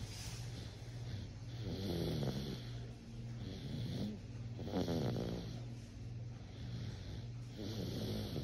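Snoring: a run of snores about every two seconds, each a rattling breath that slides down in pitch, over a steady low hum.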